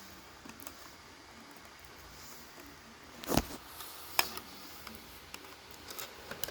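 Small hardware handled by hand: faint taps and rustles, with two sharp clicks about three and four seconds in.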